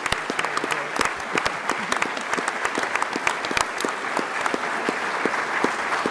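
Applause: many people clapping steadily, a dense run of hand claps from the panel and the room.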